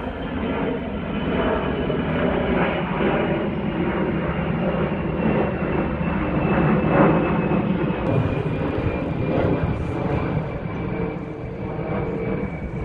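Airplane passing by: a steady engine rumble that swells to its loudest about seven seconds in, with a thin high whine that slowly drops in pitch as it goes.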